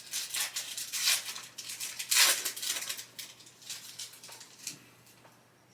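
Foil trading-card pack wrapper crinkling and tearing as the pack is ripped open, in a quick run of sharp crackles that peaks a little over two seconds in and dies away near the end.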